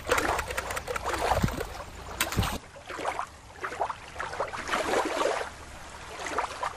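Shallow river water splashing and trickling, with many small splashes close to the microphone.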